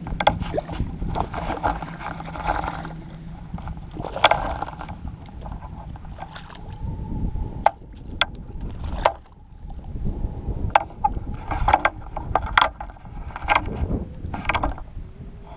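Wind buffeting a rod-mounted action camera and water sloshing, with a rumble throughout, broken by a series of sharp clicks and knocks, most of them in the second half.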